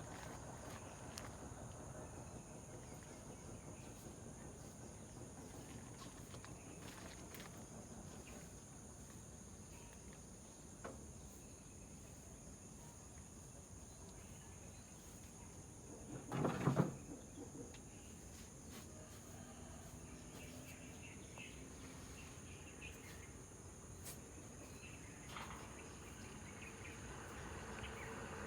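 Insects, crickets or the like, trilling steadily at a high pitch in the background. A brief louder rustle or knock comes about two-thirds of the way through.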